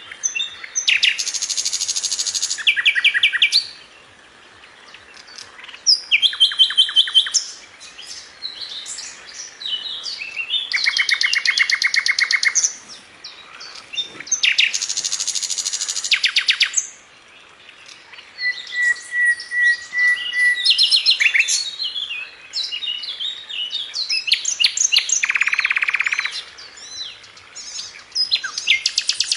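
Songbird song: phrases of rapid trills and quick chirps, each lasting a second or two, separated by short pauses.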